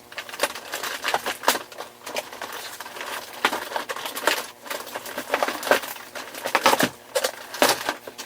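Plastic packaging and ties crackling, rustling and clicking irregularly as a large action figure is worked loose from its box insert.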